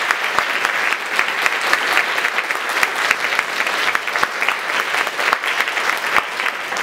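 Audience applauding steadily, a dense patter of many people's hand claps.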